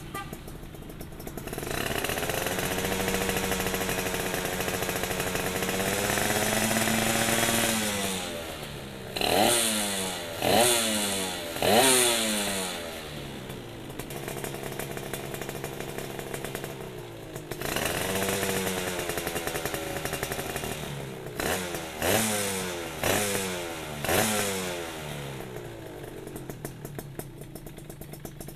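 Suzuki Satria 120 two-stroke single-cylinder engine with a CMS ABRT20 underslung expansion-chamber exhaust, free-revved at a standstill. It is held at raised revs for several seconds, drops back, gives three sharp throttle blips and falls to idle. Then it is held high again, gives a few more quick blips and settles back to idle near the end.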